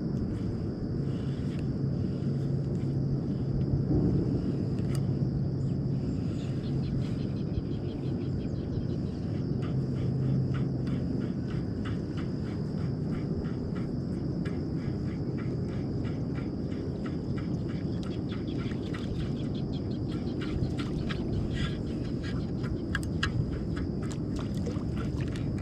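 Outdoor ambience on open water: a steady low rumble with a faint, steady high-pitched tone, and from about ten seconds in a run of rapid light clicks.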